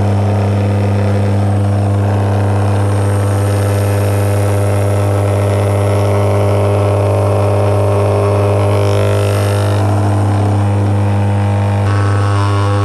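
Electric vibrating lid of a six-screen stainless-steel sifter stack running, a steady low electric hum as it shakes dried plant material down through the screens during a two-minute sifting batch.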